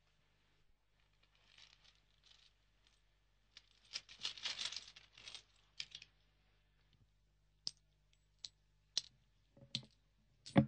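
Cloth rustling, then coins clinking down into a hand one at a time: five sharp clinks spread over the last three seconds.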